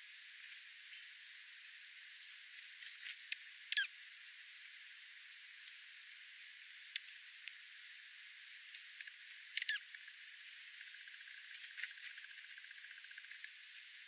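Scattered short high chirps and chip notes of small songbirds, with a down-slurred chirp about four seconds in and again near ten seconds, and light clicks among them.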